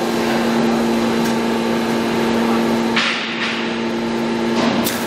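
PVC pipe extrusion line machinery running with a steady hum and whine. About three seconds in there is a short burst of hiss, and near the end a sharp click.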